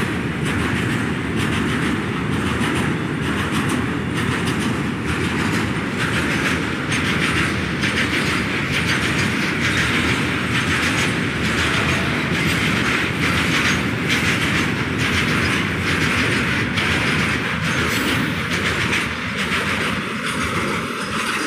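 Bogie oil tank wagons of a freight train rolling past: a steady rumble of wheels on rail with a rapid clickety-clack of wheels over rail joints, easing off slightly near the end.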